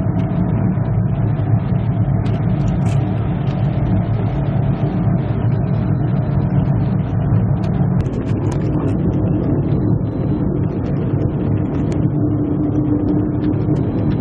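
Steady engine and road noise inside a moving car's cabin, a low rumble that holds at an even level.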